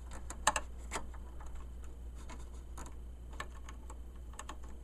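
Scattered light clicks and taps of a part being handled and fitted back into a flat-screen TV's back panel, the sharpest about half a second in, over a steady low hum.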